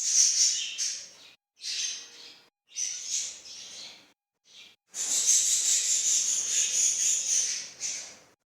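A flock of small pet cage birds, such as budgies and finches, chirping and chattering in several short bursts, then in one longer continuous stretch in the second half.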